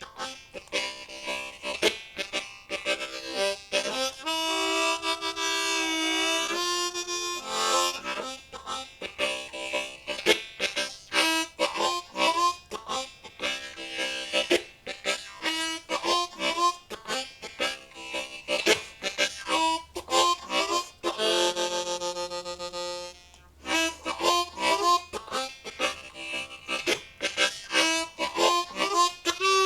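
Unaccompanied blues harmonica, a Low F Hohner Marine Band Crossover played in second position: a chordal shuffle of short, rhythmic chord stabs, with a few longer held chords in between.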